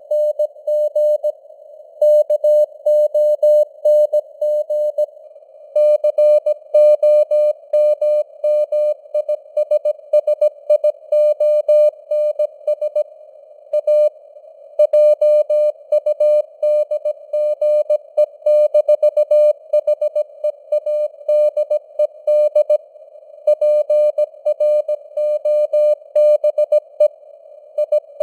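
Morse code (CW) at 17 words per minute: a single steady tone keyed on and off in dots and dashes, with short pauses between words. Under it is a faint band of simulated radio hiss.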